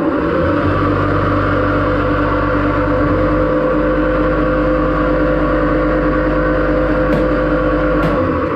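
Steady machine running: a hum with two steady tones over a rushing noise. A deep rumble underneath stops near the end, just after two short clicks.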